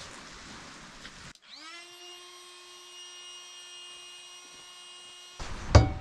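A small electric motor spins up with a quickly rising whine, then runs at one steady high pitch for about four seconds before cutting off abruptly. A loud thump follows near the end.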